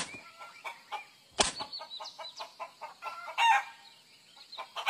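Chickens: a chick peeping repeatedly in short high chirps around a hen, with a louder, lower call about three and a half seconds in. Two sharp clicks come at the start and about a second and a half in.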